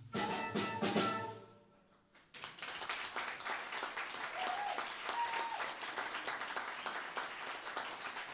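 A jazz trio of organ, flute and drum kit plays its final chord with drum and cymbal hits, which rings out and fades away within about two seconds. After a short hush, the audience breaks into steady applause that carries on to the end.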